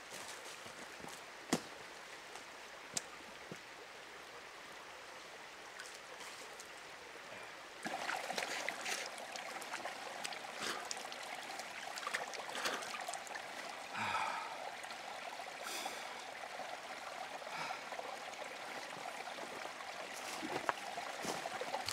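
A small forest stream trickling and gurgling, which comes in suddenly about a third of the way in and runs on steadily, with scattered sharp clicks and knocks over it. Before the water comes in there is quiet outdoor air with a few isolated sharp clicks.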